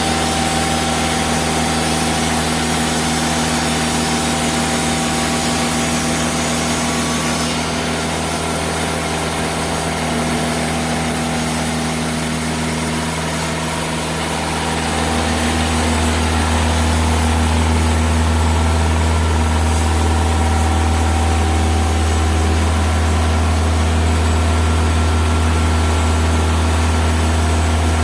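Diesel engine of a TimberKing 2000 band sawmill running steadily, its low hum growing louder about halfway through.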